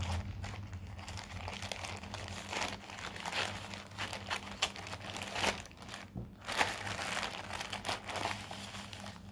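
Plastic courier mailer bag crinkling in irregular crackles as it is cut open with scissors and pulled apart by hand.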